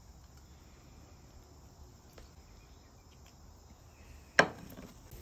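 Faint, steady insect chirring in the background, broken by a single sharp knock about four seconds in.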